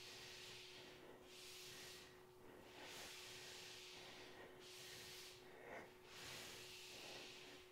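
Faint, hard breathing of a person exercising: a hissing breath swelling and fading about every one and a half seconds.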